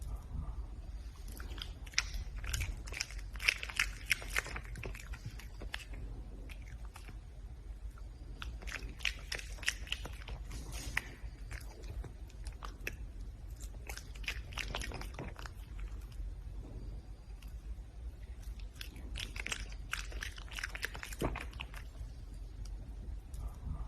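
Red panda biting and chewing its food, in four bouts of crunching a few seconds long with short pauses between.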